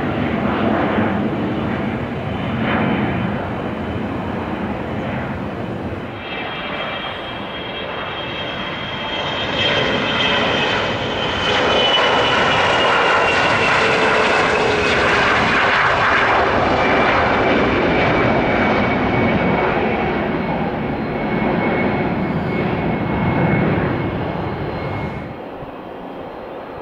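Business jets taking off: a departing jet fading as it climbs away, then a Gulfstream's takeoff run passing close, its jet roar building to the loudest point in the middle with whining engine tones sliding down in pitch as it goes by. Near the end the noise drops sharply to a more distant jet on the runway.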